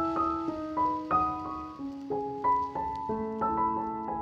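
Background piano music: notes struck a few times a second over held lower notes.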